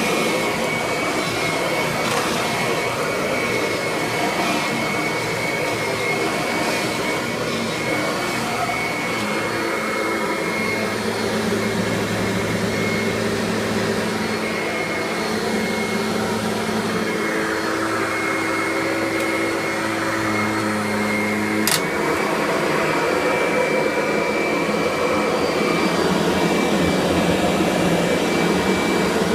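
Upright vacuum cleaner running steadily, with a high thin whine over its motor noise. About ten seconds in, a lower hum joins for about eleven seconds, then stops with a sharp click.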